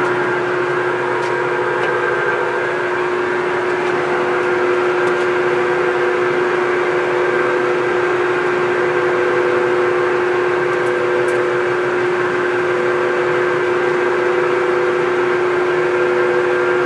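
Acra 2260 engine lathe running with its spindle at 230 RPM in low range: a steady mechanical hum with a constant whine. Its headstock gearing sounds good.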